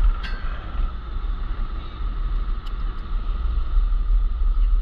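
Motorboat engine running steadily under way, with wind buffeting the microphone as a heavy low rumble. A single sharp click sounds just after the start.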